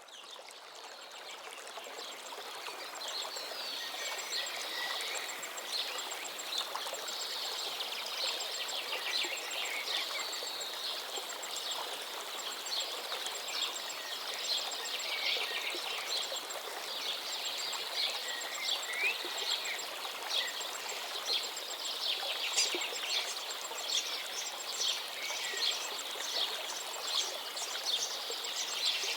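Running water of a stream or small waterfall, a steady rushing, with many birds chirping and singing over it; the sound fades in over the first few seconds.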